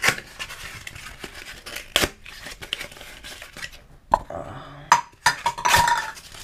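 Cardboard toilet paper tube being torn apart by hand: a series of sharp rips with crinkling between them, the loudest at the very start, about two seconds in, and twice near the end.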